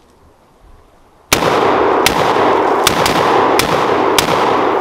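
Springfield Armory SAINT Victor AR pistol with a 7.5-inch barrel being fired. About six shots start a little over a second in and come irregularly, roughly half a second to a second apart, two of them almost together. A loud steady noise carries on between the shots.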